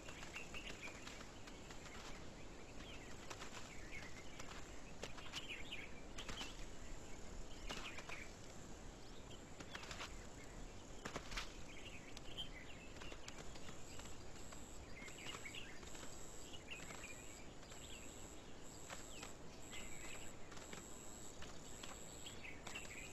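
Faint outdoor ambience: a steady hiss with scattered bird chirps and occasional short sharp knocks.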